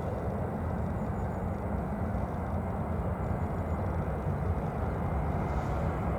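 Steady low rumble of a departing Boeing C-17A Globemaster III's four turbofan engines, heard at a distance.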